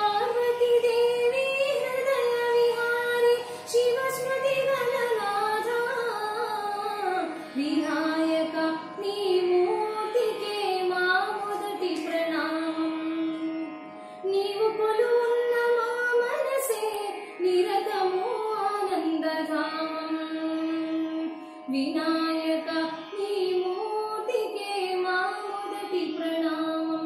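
A woman singing solo in Carnatic style, one voice line with gliding, ornamented pitch, sung in phrases of a few seconds with short breaks for breath between them.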